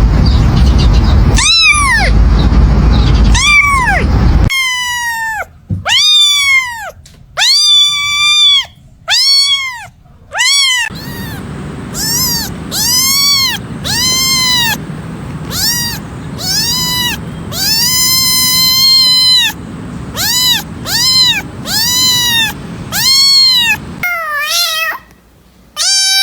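Cat meowing over and over: a run of separate meows, each rising and falling in pitch, with some long drawn-out calls. The calls shift in tone a few times, as from different cats, with a harsher, wavering run of meows near the end.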